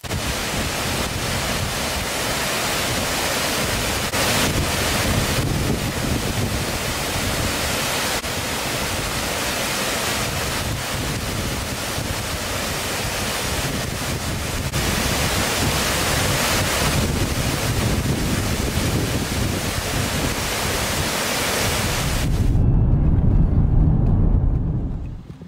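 Nelson Falls waterfall rushing: a steady, full roar of falling water. About 22 seconds in it gives way to the low rumble of a car driving on a road.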